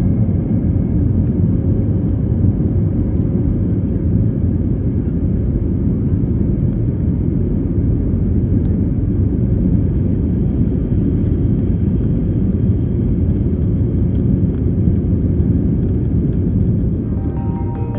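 Steady roar in the cabin of an Airbus A321neo, its Pratt & Whitney geared turbofan engines at climb power shortly after takeoff, mixed with the rush of air over the fuselage. About a second before the end, music with bell-like notes comes in over it.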